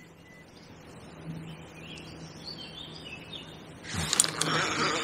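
Faint bird chirps over quiet riverside ambience, then about four seconds in a sudden loud rustle and clatter as a fishing rod is struck upward and the reel handled to hook a bite.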